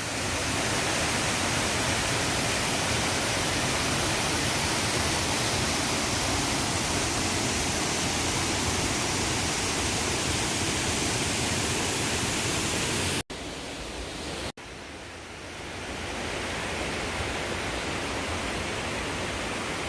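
Waterfall: a steady rush of falling water. It breaks off abruptly about two-thirds of the way through and returns a little quieter.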